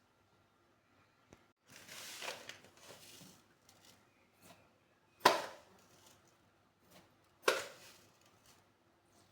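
Food being prepared in a kitchen: a stretch of rustling and scraping, then two sharp knocks about two seconds apart.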